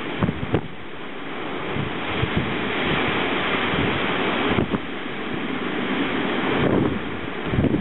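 Storm wind and rain in a post-tropical storm: a dense rushing noise that rises and falls with the gusts, the wind buffeting the microphone in low thumps.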